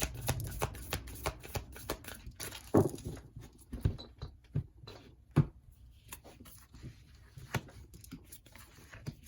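Tarot cards being handled and shuffled: a quick run of rustling, clicking card noise for about three seconds, then scattered single snaps and taps as cards are set down.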